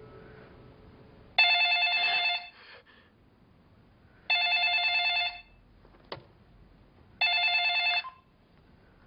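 Mobile phone ringtone: three identical electronic rings, each about a second long and about three seconds apart, with a short click between the second and third.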